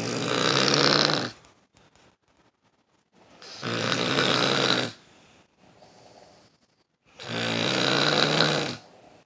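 A sleeping person snoring loudly: three long snores with a low buzz, each lasting about a second and a half and coming about every three and a half seconds, with faint breaths between them.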